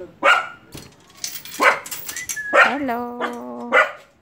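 Dogs barking repeatedly in short, sharp barks.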